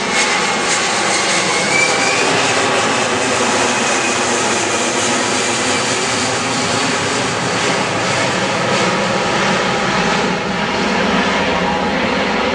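Four Pratt & Whitney F117 turbofan engines of a Boeing C-17 Globemaster III transport jet making a low pass overhead: steady, loud jet engine noise.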